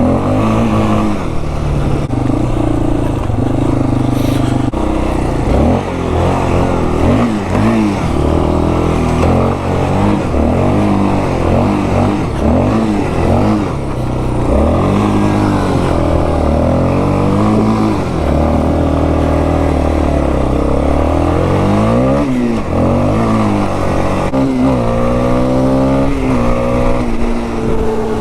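A 2001 Yamaha Warrior 350's single-cylinder four-stroke engine being ridden, its revs rising and falling again and again as the throttle is worked. The revs hold steady for a few seconds in the middle and climb again near the end. The engine is running well after its carburetor was cleaned out.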